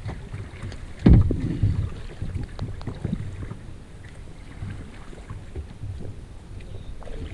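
Kayak paddling on a river: water splashing and lapping at the hull close to the microphone, with wind rumbling on the microphone. One loud thump about a second in.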